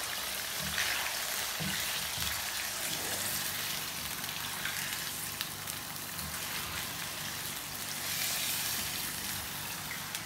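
Raw chicken pieces sizzling steadily as they fry in hot oil in a nonstick karahi, with the spatula stirred through them now and then.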